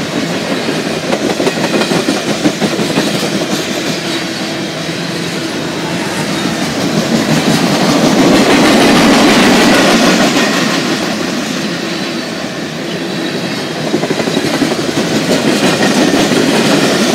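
Mixed freight train cars (tank cars, covered hoppers, boxcars) rolling past, steel wheels rumbling and clicking over the rail. The sound swells louder for a few seconds about halfway through.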